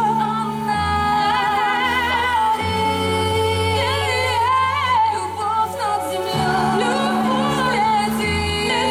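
Two women singing pop vocals with vibrato and runs into handheld microphones over a backing track played through the stage PA, its held bass notes changing every couple of seconds.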